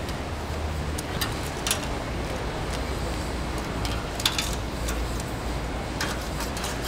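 Metal tongs clicking against the bars of a charcoal grill as grilling mantis shrimp are turned, several sharp clicks with the loudest about four seconds in, over a steady background hiss and low rumble.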